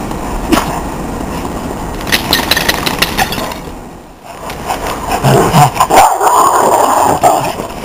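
Dogs barking as they play-fight, loudest from about five seconds in to near the end.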